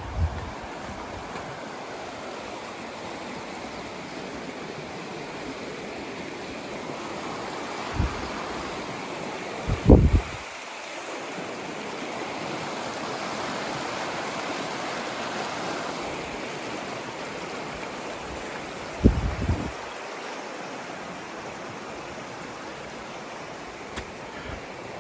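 Steady rush of a fast-flowing stream or waterfall, an even hiss of water, with a few short low thuds, the loudest about ten and nineteen seconds in.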